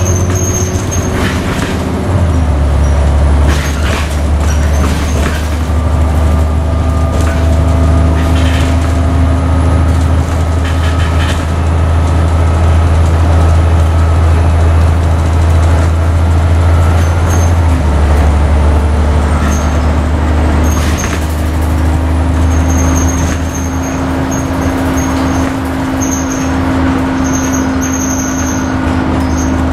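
Interior sound of an Alexander Dennis Enviro400 double-decker bus on the E40D chassis under way: its Cummins 6.7-litre six-cylinder diesel runs with a steady low drone whose note shifts twice, about two seconds in and again past the halfway point, under a faint rising whine. Short squeaky rattles from the bodywork come through over the engine.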